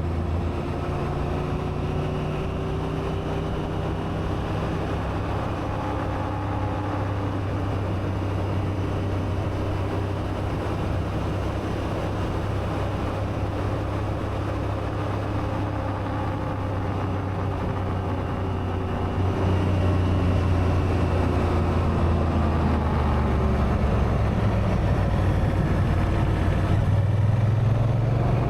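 Honda Africa Twin's parallel-twin engine running steadily under way, with wind and road noise. It gets louder about two-thirds of the way through and its pitch climbs near the end as it revs up.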